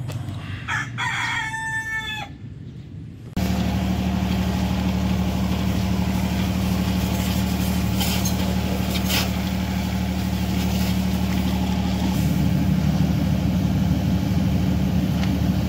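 A rooster crows once, about a second in. From about three and a half seconds a steady machine hum with a hiss takes over, the electric motor and pump of a pressure washer at a motorcycle wash; its low tone shifts slightly about twelve seconds in.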